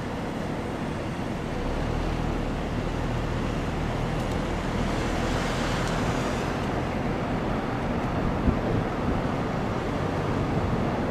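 Road traffic noise with a low wind rumble on the microphone; a hissing swell, like a car going by, about five to six seconds in.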